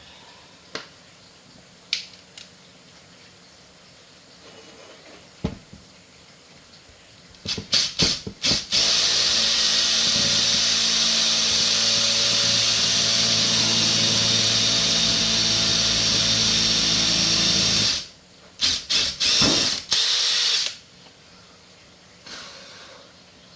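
A drill-like power tool motor, switched on in a few short blips, then running steadily for about nine seconds with a high whine, then blipped a few more times before stopping.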